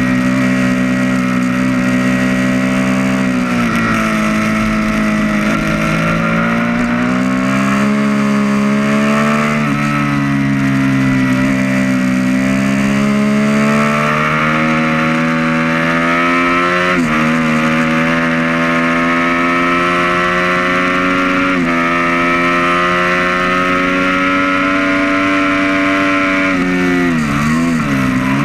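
The 2012 Triumph Street Triple R's 675 cc inline-three engine is ridden hard and heard from on board the bike, with wind rush over the microphone. The engine note climbs with throttle and drops sharply twice in the second half as the rider shifts up. Near the end it wavers quickly up and down as the rider slows and shifts down.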